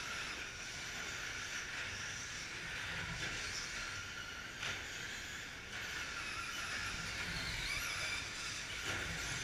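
Several electric RC short-course trucks with 17.5-turn brushless motors racing on dirt: a high motor whine rising and falling with throttle over a steady hiss of tyres on the track, with a couple of sharp knocks about halfway through.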